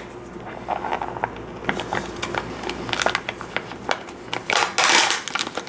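Plastic toy packaging being handled and torn open, crinkling and crackling with many small clicks. There is a louder stretch of tearing and rustling near the end.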